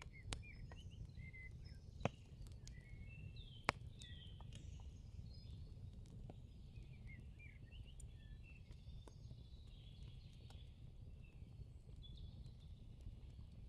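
Faint birdsong: many short chirps and little trills from small birds, over low steady background noise. Two sharp clicks stand out, about two seconds and just under four seconds in.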